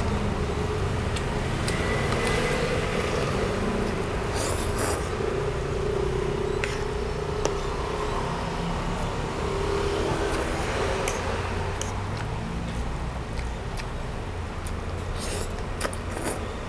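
A vehicle running, with a steady low rumble and scattered small clicks and scrapes.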